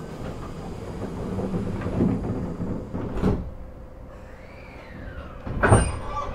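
Sliding passenger doors of an E127-series electric train closing before departure: a couple of knocks about two and three seconds in, then a loud thud near the end as the doors shut.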